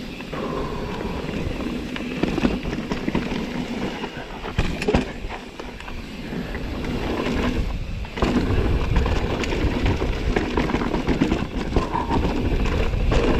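Mountain bike rolling down a dirt trail: knobby tyres on dirt and roots, with the bike clattering and rattling over bumps and wind buffeting the microphone. It grows louder and rougher from about the middle on, as the speed picks up.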